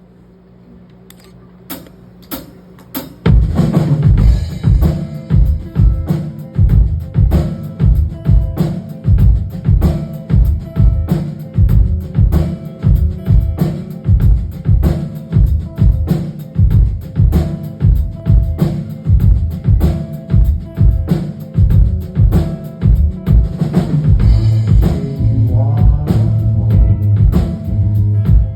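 Live rock band opening a song: after a faint held low note and a couple of single hits, the drum kit comes in about three seconds in with a steady kick-and-snare beat over bass, heard loud through the hall.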